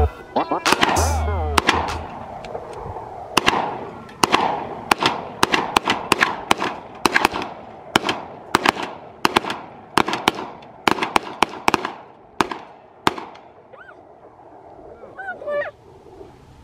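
Rapid gunfire: a long string of about thirty shots, two or three a second, each with a ringing echo, stopping near the end. A moment of music plays before the shooting starts.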